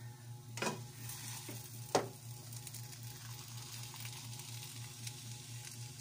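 Spatula stirring and folding a thick ground-rice and coconut-milk dough in a wide pan, over a steady hiss from the mixture cooking. The spatula knocks against the pan twice, the louder knock about two seconds in. A steady low hum runs underneath.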